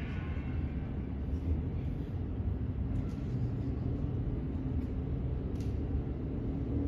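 A low, steady rumble with a few faint clicks.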